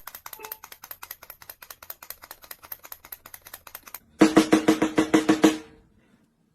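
Rapid, even tapping like a drum roll, about eight taps a second. It is soft for about four seconds, then a louder, pitched run of taps lasts about a second and a half and stops.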